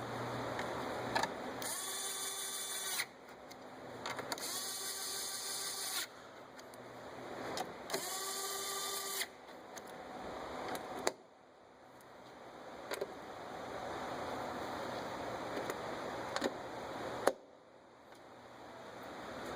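Cordless power screwdriver driving Torx screws: its small electric motor runs in three short bursts of about a second each, its whine dipping as it winds up and down. Later a hissing noise builds gradually, twice.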